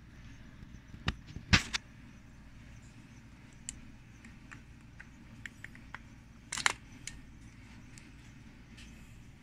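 Hard plastic clicks and snaps from a Scian NB810B mesh nebulizer as its clear medicine cup is worked loose and pulled off the base, with light handling ticks between. The sharpest click comes about a second and a half in, and another small cluster about two-thirds of the way through.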